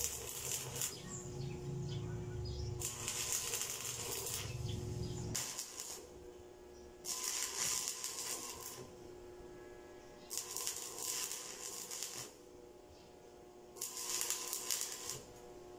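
Arc welding on a steel electrical-service pipe: the arc crackles and hisses in bursts of one to two seconds, about six times, with short pauses between as the arc is stopped and struck again.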